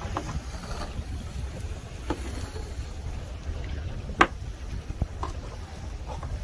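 Wind buffeting the microphone aboard a small fishing boat on choppy sea, with a few sharp knocks, the loudest about four seconds in.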